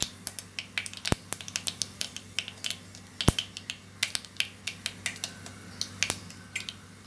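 Mustard seeds and other tempering spices spluttering in hot gingerly (sesame) oil in a clay pot: irregular sharp pops, several a second, with two louder pops about a second in and just past three seconds.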